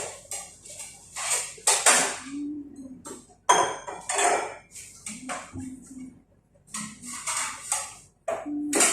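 Kitchen utensils clattering and scraping against pots and pans in a run of short, irregular strokes.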